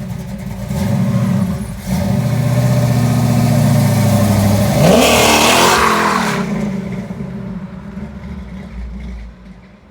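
Small-block Chevy 355 V8 with a Comp Cams XE274H cam and a 3-inch X-pipe exhaust, running steadily, then revved hard about five seconds in, the pitch rising sharply before the sound dies away.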